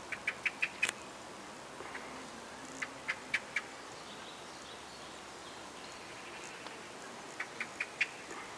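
A small bird chirping in quick runs of four or five short, high chirps: one at the start, one about three seconds in and one near the end, over a faint steady hiss.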